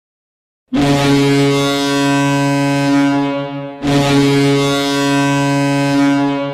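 Hockey arena goal horn blowing two long, deep blasts of about three seconds each, starting just under a second in.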